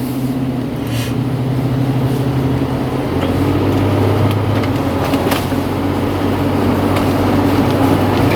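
Car engine and road noise heard from inside the cabin while driving, a steady low hum whose pitch shifts slightly a few seconds in.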